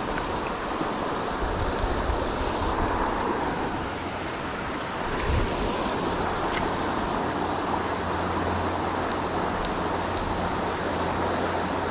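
Fast-moving creek water rushing steadily, with some wind rumble on the microphone and a few faint ticks.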